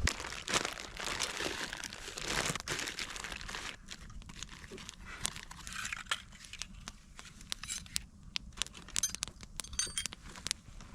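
Crinkling and rustling of camping gear being handled and packed up, dense for the first four seconds or so, then sparser crinkles and sharp clicks.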